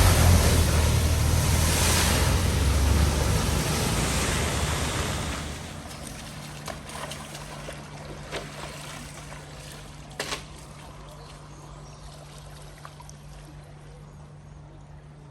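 A vehicle driving through deep floodwater at a ford: engine rumble under a rush of splashing water, fading away over the first five seconds or so. Afterwards a quieter steady low hum remains, with a faint knock about ten seconds in.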